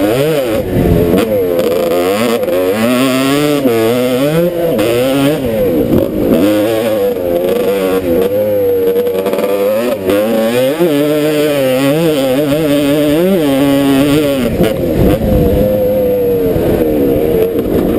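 Off-road dirt bike engine revving up and down continuously as the rider works the throttle and gears, its pitch rising and falling every second or two. The sound is picked up close by, over the bike.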